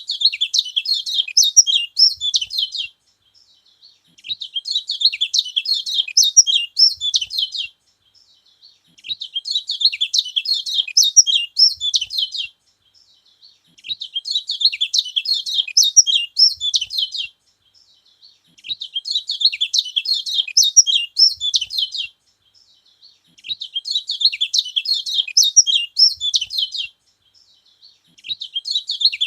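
A yellow kecial (kecial kuning, a white-eye) singing a rapid, high-pitched twittering song. It comes in phrases of about three seconds, each followed by a pause of about a second, repeated six times in a steady cycle.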